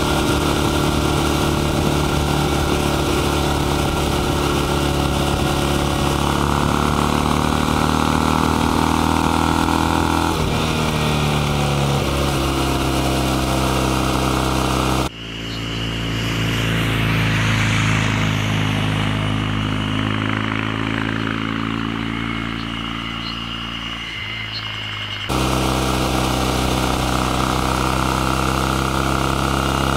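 Kawasaki W800 CAFE's air-cooled 360-degree-crank vertical twin running under way. The revs climb and then drop back about ten seconds in. Around halfway the sound turns abruptly duller and lower for about ten seconds, then returns to its earlier fuller note.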